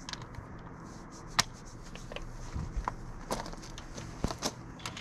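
Hand tools clinking and knocking against the metal parts of an off-road vehicle's front hub and axle during repair work: a handful of sharp clicks and knocks at irregular intervals, the loudest about a second and a half in.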